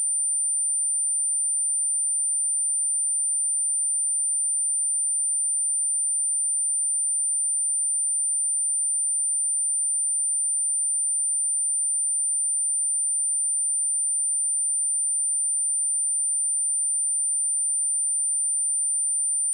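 A steady, high-pitched pure sine-wave test tone at 9146 Hz, held unbroken at constant level.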